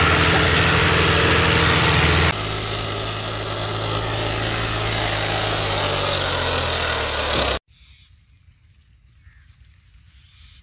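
Diesel farm tractor engines running loud and close under load, hauling a trolley. About two seconds in the sound cuts to another tractor pulling away, its engine note slowly rising in pitch, then about seven and a half seconds in it cuts off abruptly to faint outdoor quiet.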